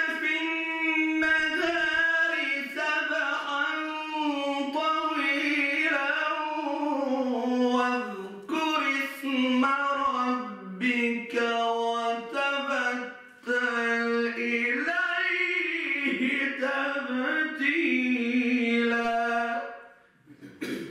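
A solo male voice recites the Quran in the melodic tajweed style, unaccompanied. It holds long, ornamented notes that drift lower, with a few short breath pauses, and stops near the end.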